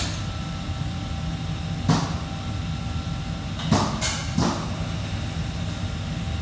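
Commercial kitchen background: a steady low hum with a few sharp knocks and clatters of kitchenware, about two seconds in and again several times around four seconds in.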